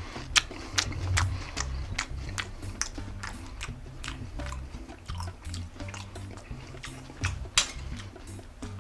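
Background music with a steady, evenly spaced percussive beat and a stepping bass line.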